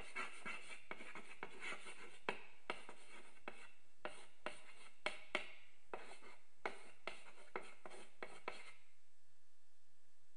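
Chalk writing on a blackboard: quick scratchy strokes with sharp taps, stopping about nine seconds in.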